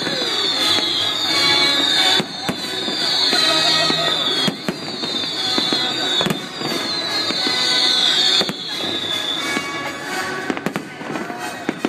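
Fireworks display: shells bursting with sharp bangs and a dense high crackle, over music, the crackle thinning out near the end.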